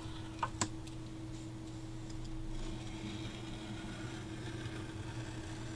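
Craft knife blade drawn slowly along white card, a faint scratchy scraping, with two small clicks about half a second in. A steady low hum lies underneath.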